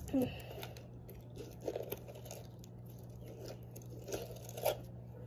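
Blue crunchy slime packed with foam balls being pressed and poked by fingers: faint, scattered squishy crackles, the loudest about a quarter of a second in.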